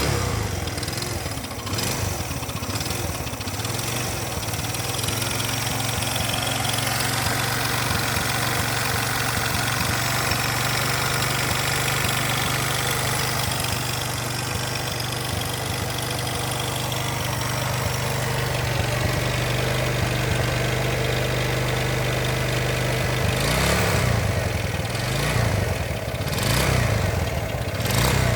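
Roadmaster CD200 motorcycle engine idling steadily just after starting, then revved in several short blips near the end. The owner calls it a bad engine noise.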